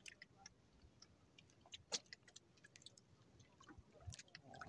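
Near silence broken by sparse faint clicks and ticks, one a little louder about two seconds in: small handling noises as a handline fishing hook and line are worked with the fingers.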